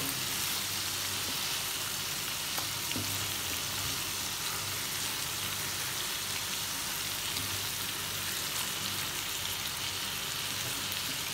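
Hilsa fish frying in mustard paste in a non-stick pan: a steady sizzle, with a few light knocks of a spatula as the fish are turned.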